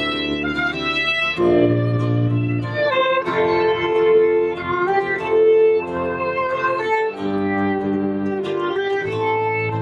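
Acoustic string-band music: a fiddle and a guitar playing a tune together.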